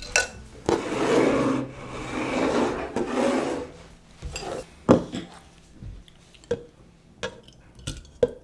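Kitchen utensil scraping and rubbing on a dish, in rough strokes over the first few seconds, followed by a series of light knocks and taps, the loudest about halfway through.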